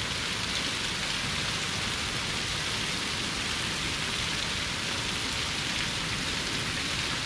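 Steady, even rush of water spilling over a weir.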